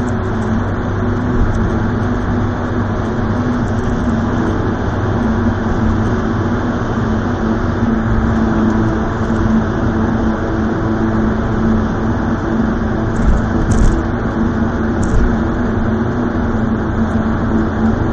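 Car driving through a road tunnel, heard from inside the cabin: steady engine and tyre noise with a low hum, and two short clicks about three-quarters of the way through.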